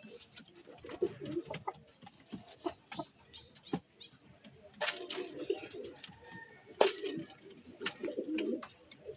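Poultry making low, warbling cooing and clucking calls again and again, with sharp clicks scattered through. The loudest click comes about seven seconds in.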